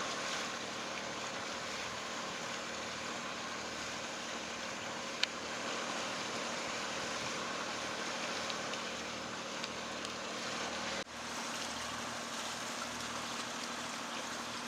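Sailing yacht's engine running steadily under way, with wind and water hiss over it. The sound cuts off abruptly about eleven seconds in and a similar steady drone carries on.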